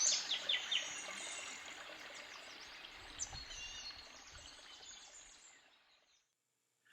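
Recorded woodland soundscape: birds chirping in quick high notes over the steady rush of a running stream. It fades out gradually to silence about six seconds in.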